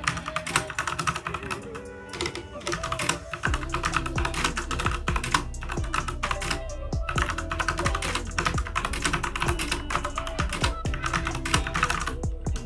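Fast, continuous typing on a mechanical keyboard with Outemu Orange soft-tactile switches, a dense run of light key clicks, over background music whose bass comes in about three and a half seconds in.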